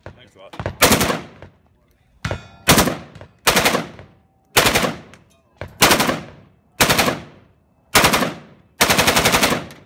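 Rifle Dynamics AK-74 Krink, a short-barrelled 5.45×39mm Kalashnikov carbine, fired in about eight short bursts of automatic fire, roughly one a second. The last burst near the end is longer, close to a second of continuous fire.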